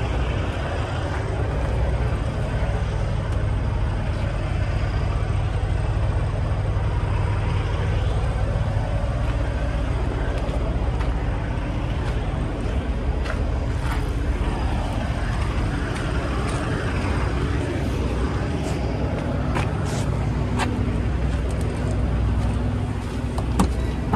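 Steady low rumble of idling semi-truck diesel engines, with a few light clicks and knocks in the second half.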